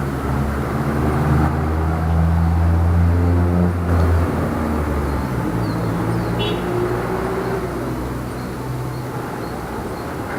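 Light city street traffic: a vehicle engine's low hum is loud through the first four seconds or so, then fades away, leaving steady, quieter traffic noise.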